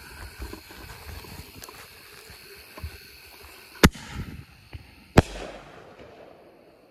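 Consumer ball shell fired from a paper mortar tube: a sharp lift-charge bang, then a little over a second later the shell's burst charge breaks overhead with a second bang that echoes away.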